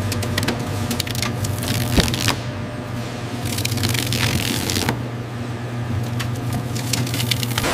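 Hide fleshing machine running with a steady low hum while its rotating blades strip flesh and fat from a raw hide, with wet squishing and crackling throughout. There is one sharp knock about two seconds in.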